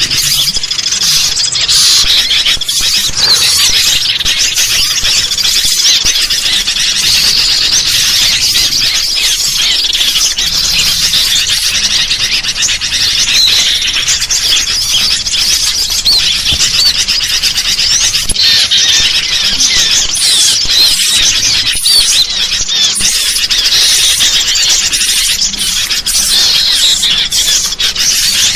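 A dense, unbroken chorus of noisy sooty-headed bulbul chatter mixed with the high chirps and squeaks of many small birds. It is a bird-lure (pikat) recording made to attract small birds.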